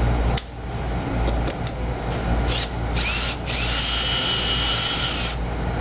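Cordless drill boring a hole through a plastic intake air duct. The motor whines up in two short blips, then runs steadily for about two seconds.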